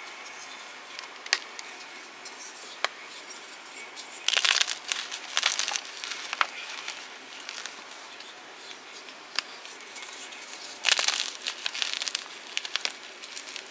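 Fresh blocks of gym chalk being crushed and crumbled: a few single sharp snaps, with gritty crunching spells about four seconds in and again near eleven seconds, the loudest near the eleven-second mark.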